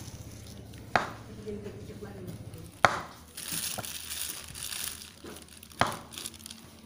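Banana pieces being laid out by hand on a metal baking tray: three sharp knocks and clinks on the tray, a couple of seconds apart, with a stretch of rustling in the middle.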